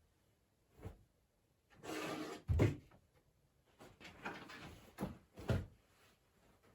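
Household things being handled: a short knock, then a scraping slide about two seconds in that ends in a solid thump, followed by more rustling and two lighter knocks near the end.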